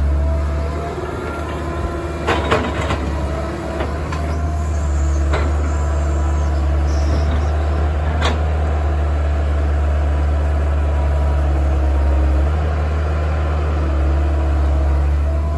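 Kobelco tracked excavator's diesel engine running steadily under load, with a whine from the hydraulics that shifts in pitch as the boom and bucket work. Sharp clanks from the bucket and digging come about two seconds in, then near four, five and eight seconds.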